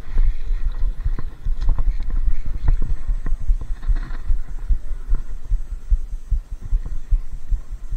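Irregular low thumping and rumble on the microphone, with scattered light clicks, as a spinning fishing reel is handled and its handle turned.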